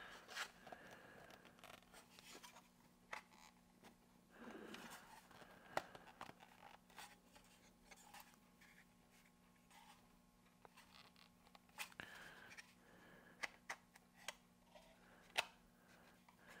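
Very quiet handling of small parts: scattered sharp clicks and short light scrapes as an aluminum rod linkage is fitted to an air-conditioning duct's diverter door and worked by hand, over a faint steady hum.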